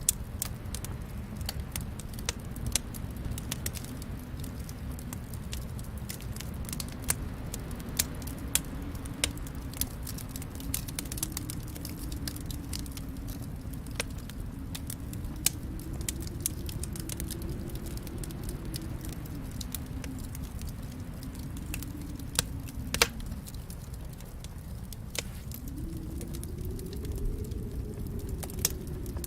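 Wood fire in a fireplace crackling, with sharp pops scattered irregularly over a steady low rumble of the flames; one pop stands out a little louder than the rest near the middle.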